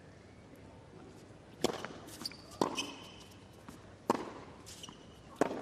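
Tennis rally on a hard court: four sharp pops of rackets striking the ball, about 1 to 1.5 s apart, with short high shoe squeaks on the court between them.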